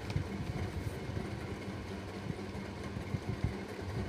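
Steady low hum with a faint engine-like drone and low rumble, with no distinct event standing out.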